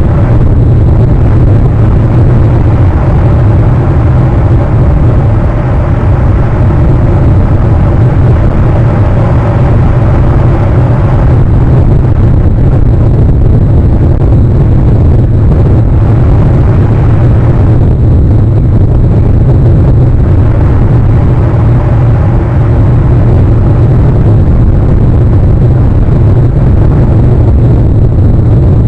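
Loud, steady low rumble of wind buffeting an outdoor webcam microphone, pushing the level close to distortion.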